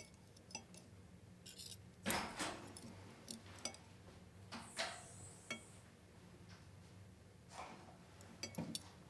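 Faint tableware sounds at a meal: scattered light clinks and knocks of dishes and cutlery, with a louder knock about two seconds in and a brief high ring around five seconds, over a low steady hum.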